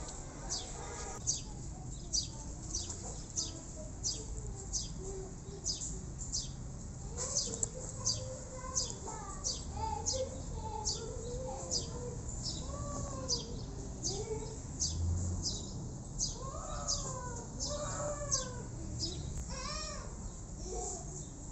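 A bird chirps repeatedly, a short high note about twice a second. From about seven seconds in, kittens mew in short rising-and-falling cries, more often toward the end.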